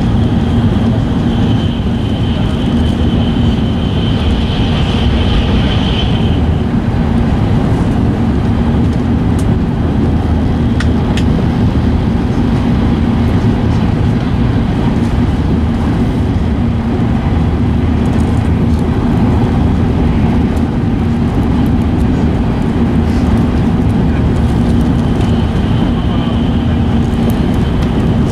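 Steady running noise inside an E5 series Shinkansen car travelling at speed: a continuous rumble and rush with a low hum. A high, thin whine sits over it for the first six seconds or so, fades, and returns near the end.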